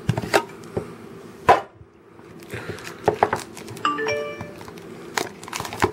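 Clear hard-plastic card box being handled and pried open: several sharp plastic clicks and knocks, and a short squeak about four seconds in.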